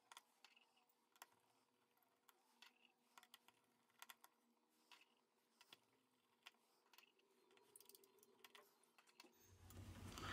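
Near silence with faint, scattered clicks of a precision screwdriver turning out the small screws of a Xiaomi Mi8 Lite's bottom loudspeaker cover plate. A low hum comes up near the end.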